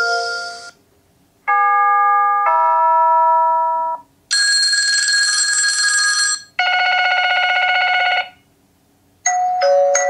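Eufy HomeBase doorbell alert tones previewed one after another through a smartphone speaker: the end of one tone, then four more short electronic chimes and ring tones, each a few notes or a steady multi-pitched tone lasting one to two seconds, with brief pauses between them.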